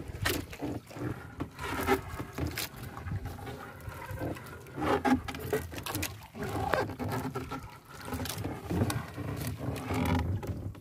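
Wet triple (trammel) fishing net being hauled by hand over the gunwale of a small wooden outrigger boat: irregular rustling and sharp knocks against the hull, with water sloshing and dripping.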